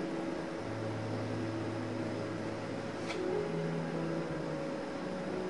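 Slow background music of long held notes that change pitch every second or so, over a steady hiss, with a faint tick about three seconds in.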